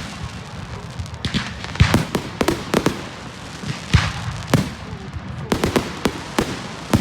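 Fireworks going off: a quick run of sharp bangs and cracks, with the loudest reports about two seconds and four seconds in.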